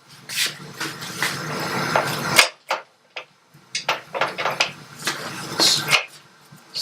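Metal clanking, knocking and scraping as motorcycle rear-wheel parts (axle, spacers, caliper bracket) are handled and worked into place, in two spells with a short pause a little before the middle.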